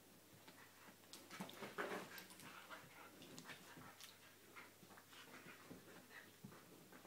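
Fox and dog play-fighting on a sheet-covered sofa: faint scuffling and rustling of the fabric with soft animal cries, loudest about two seconds in.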